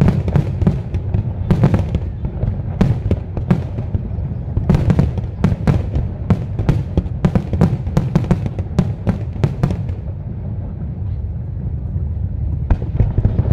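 Aerial fireworks display: a rapid string of shell bursts and sharp crackling bangs that thins out about ten seconds in, then picks up again near the end.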